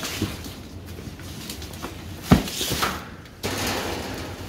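A heavy thump a little over two seconds in, with a few lighter knocks around it, then rustling of the bagged mattress as it is shifted and tipped.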